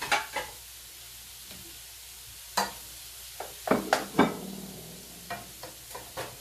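Wooden spatula knocking and scraping against a wok while stirring and breaking up scrambled eggs, in irregular strokes with the loudest cluster about four seconds in. Under it, the steady sizzle of shrimp frying in a pot of oil.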